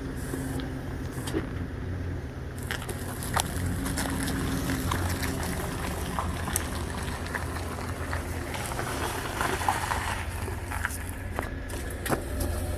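Steady low rumble like a vehicle running, with scattered light clicks and knocks on top.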